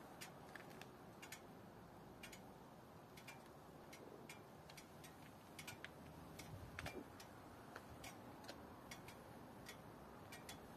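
Faint, uneven ticking: short sharp clicks, two or three a second at irregular intervals, over near silence.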